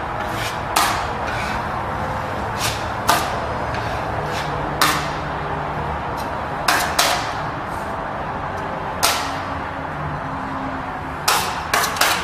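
Metal putty knife scraping filler across drywall in short, sharp swipes, about a dozen at uneven intervals.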